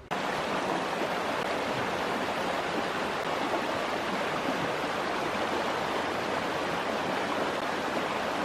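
Steady rushing water of a mountain stream, an even hiss that starts abruptly with a cut.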